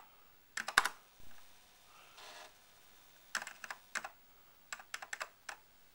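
Keystrokes on a vintage Apple II computer keyboard, typed in three short bursts of clicks with pauses between them.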